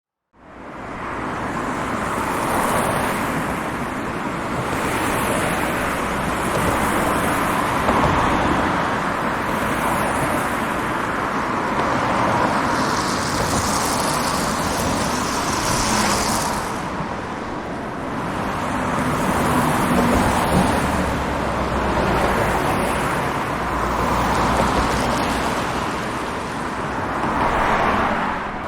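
Steady roadside traffic noise: a continuous rush of tyres and engines, swelling every few seconds as vehicles pass, with a brighter hiss from a louder passing vehicle about halfway through.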